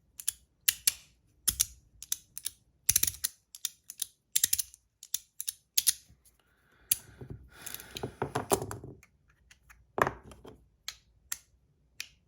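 3D-printed magnetic fidget slider (Haptic EDC square slider) being slid back and forth, its plates snapping into their 2-click magnetic stops with sharp, irregular clicks. A little past halfway comes a run of quicker, rougher clicking and rubbing.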